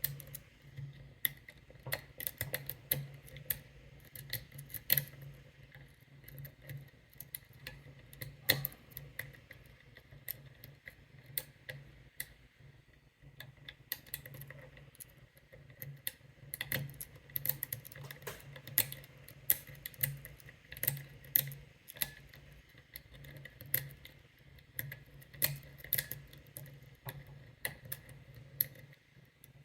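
Lock pick and tension wrench clicking and scraping inside an American 1100 padlock as its pins, including spool pins, are picked: many small, irregular metallic clicks and ticks.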